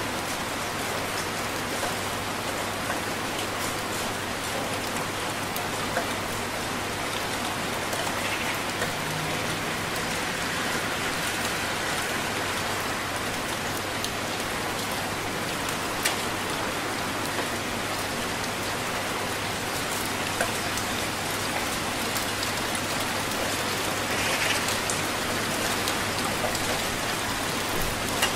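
Heavy rain falling steadily: a dense, even hiss with many individual drops tapping through it.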